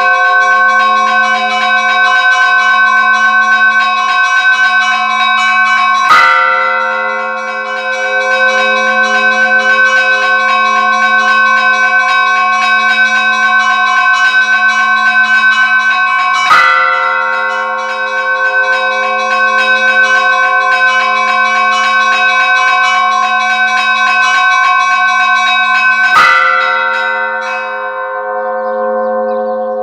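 Church bells ringing: a continuous ring of smaller bells, with three heavier strokes about ten seconds apart, each one ringing on long after it is struck.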